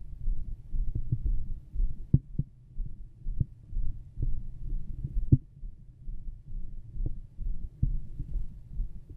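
Heartbeat heard through a stethoscope pressed to the chest: a steady run of low, dull beats, with a few sharper clicks among them.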